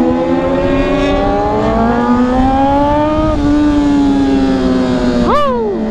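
Motorcycle engine pulling under acceleration, its pitch climbing steadily for about three and a half seconds, then dropping at an upshift and holding level. A short sharp rise-and-fall comes near the end.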